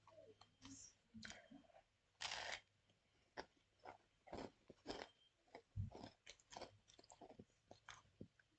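Biting into and chewing a sandwich of white bread filled with Cheez-It crackers: quiet, irregular crunches of the crackers breaking between the teeth, the loudest a little over two seconds in.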